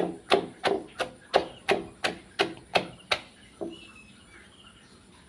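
A wooden pestle pounding chopped banana, chilies and star gooseberries in a mortar to make tam kluay: about ten steady thuds, roughly three a second. They stop a little after three seconds in, with one softer last thud.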